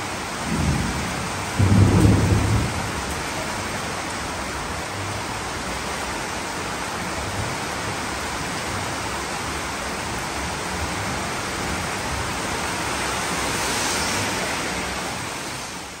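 Heavy rain pouring down onto a street, with two low rumbles of thunder in the first few seconds. Near the end a car swishes past on the wet road.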